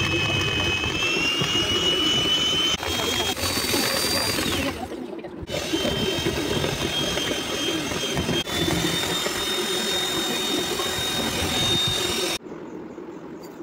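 Electric hand mixer running, its twin metal beaters whisking an egg mixture to a pale froth in a bowl: a steady motor whine over the whirring churn of the beaters. The whine shifts in pitch a few times, breaks off briefly about five seconds in, and cuts off suddenly near the end.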